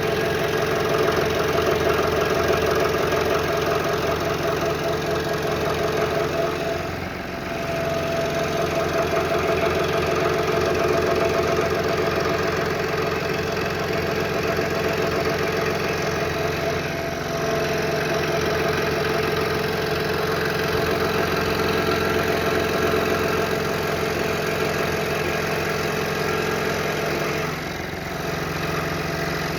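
Scroll saw running steadily as its blade cuts through a stack of maple, cherry and walnut panels. The sound eases briefly about three times.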